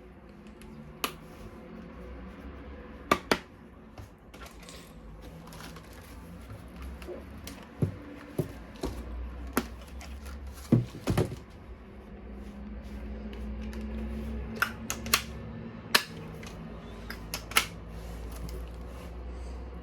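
Scattered sharp clicks and knocks of plastic toy weapon parts being handled, about a dozen spread irregularly, over a steady low hum.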